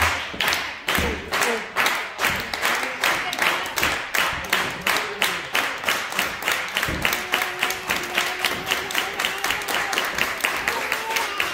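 Wrestling crowd clapping in a steady rhythm, about three claps a second at first and quickening a little toward the end, with a few voices calling out underneath.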